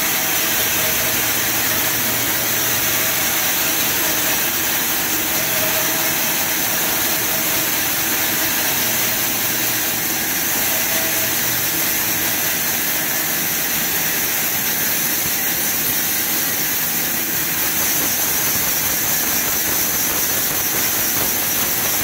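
Sawmill band saw running steadily with a constant high-pitched hiss, its thin blade set against a mahogany log. A faint low hum comes and goes twice.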